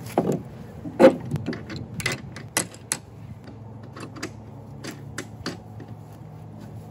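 Irregular sharp clicks and light knocks from hand work with a wooden block against a plywood hull module, busiest in the first three seconds with the loudest knock about a second in. A steady low hum runs underneath.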